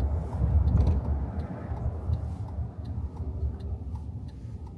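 Low rumble of a moving car heard from inside the cabin, slowly fading, with faint regular ticks over it.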